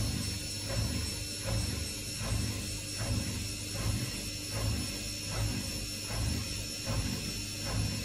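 Bosch Maxx 7 VarioPerfect front-loading washing machine running in its final spin, a steady low hum with a regular swishing pulse a little over once a second.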